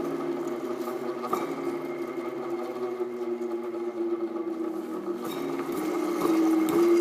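Original Ohio electric motor of an Oliver 585 grinder humming after being switched on and spun by hand. It rises a little in pitch and gets louder about six seconds in, but it wants to go and doesn't quite come up to speed.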